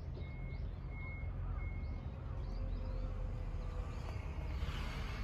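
Outdoor background: a low steady rumble with faint bird chirps, and three short, evenly spaced high beeps in the first two seconds.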